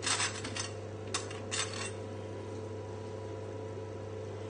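A knife scraping and tapping across crisp, toasted ciabatta slices on a metal baking tray a few times in the first two seconds, spreading mashed garlic; after that only a steady low hum.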